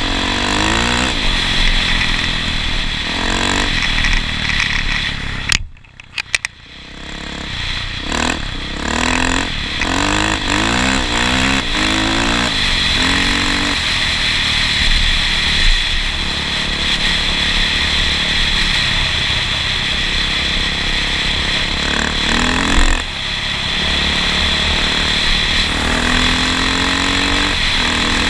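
A motor vehicle's engine accelerating, its pitch rising and then dropping several times as it shifts up through the gears. The sound drops away suddenly for about a second about six seconds in.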